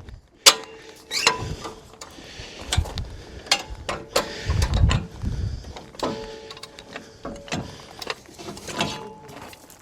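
Land Rover Series III being lowered off a jack onto its front leaf springs: a run of metal clanks and knocks with short squeaks, and a low rumble about halfway through.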